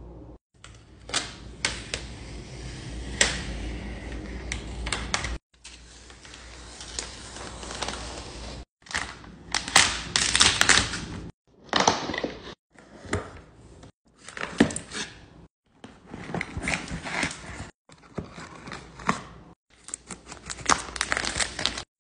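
Close-up handling of iMac packaging: fingernail taps and clicks on the cardboard box, with paper and card sliding and rustling. It comes as about ten short bursts, each broken off by an abrupt cut.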